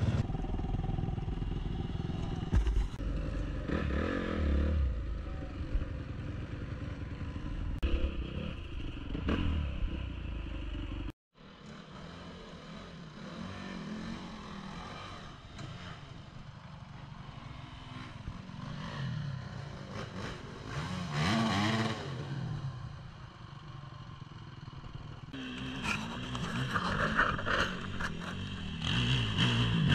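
Off-road dirt bike engines running and revving up and down repeatedly as the bikes ride the trails, across several clips with a brief dropout about eleven seconds in. The revving is loudest near the end.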